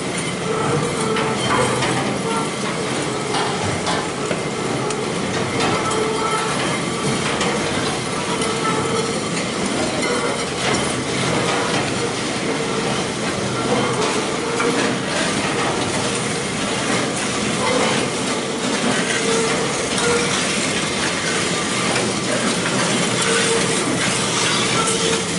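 Newly installed WK-4 chain manure scraper running: its steel link chain and scraper flights drag and clank steadily along the barn gutter, a continuous rattling clatter with a faint steady hum underneath.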